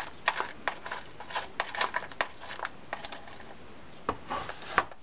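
Small loose metal and plastic washers clicking and rattling against each other and the plastic as fingers rummage through a small parts bin, in quick irregular clicks.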